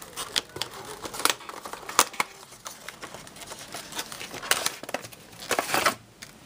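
A cardboard retail box being opened and its packaging handled: irregular sharp clicks and taps, with crinkling rustles near the end.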